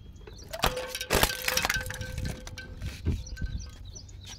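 Small plastic toy drums cracking and snapping under a rolling car tyre: a quick run of sharp cracks starting about half a second in, loudest around a second in, then a few more snaps near the end.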